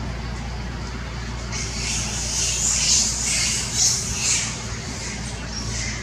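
Shrill squawking animal calls, a few loud ones bunched together from about one and a half to four and a half seconds in, over a steady low hum.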